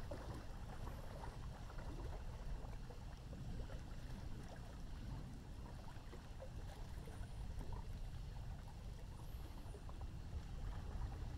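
Night thunderstorm over a river: a steady low rumble with a light crackly wash of water on top.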